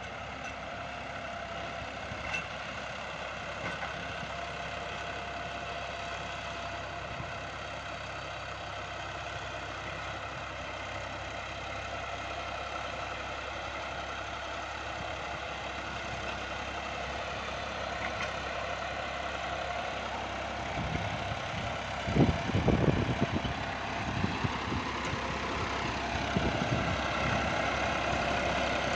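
John Deere 5075E tractor's diesel engine running steadily under load as it pulls a cultivator through a field, growing louder as the tractor comes close. A few low thumps come near the end.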